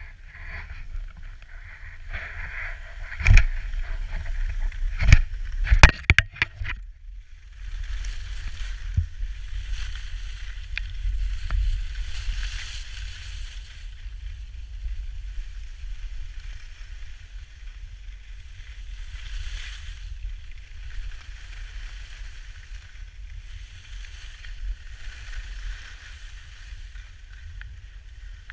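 Skis hissing over packed snow with wind buffeting the action camera's microphone during a downhill run. Several sharp knocks come in the first seven seconds.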